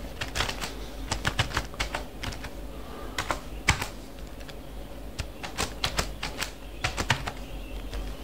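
Computer keyboard typing: irregular runs of key clicks with short pauses between words, over a low steady hum.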